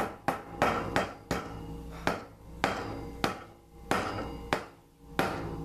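Repeated sharp knocks, about ten at a little under two a second, as thick chocolate fudge is knocked out into the cake pan.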